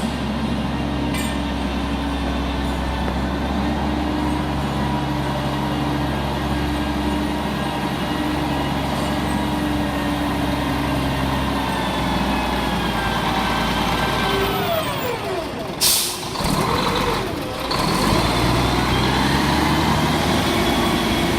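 Diesel engine of an old Mack truck running steadily, then dropping in pitch as it slows. About 16 seconds in there is a short, sharp air-brake hiss, and the engine picks up again afterwards.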